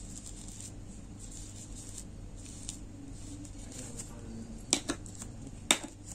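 Paintbrush knocking on the rim of a small pot of varnish: two quick sharp clicks a little before the end and a louder single click just after, as excess varnish is wiped off the brush. Faint brushing ticks and a low steady hum come before them.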